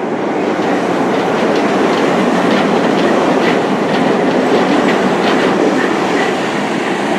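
A train running past close by, a steady rumble with its wheels clicking over the rail joints.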